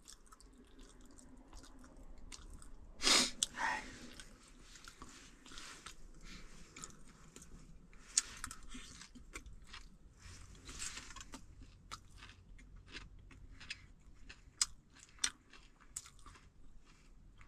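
A person chewing a mouthful of steamed rice close to the microphone, with scattered small clicks and a brief louder sound about three seconds in.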